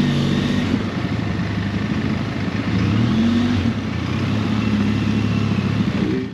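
Benelli TRK 502X motorcycle's parallel-twin engine running at low speed in stop-and-go traffic, its pitch rising and falling as the throttle is opened and closed, over a steady rush of road and traffic noise.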